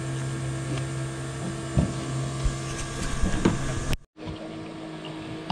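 Small outboard motor running at a steady idle hum, with a few knocks and splashes from the boats being handled; the hum drops away after a brief cut about four seconds in.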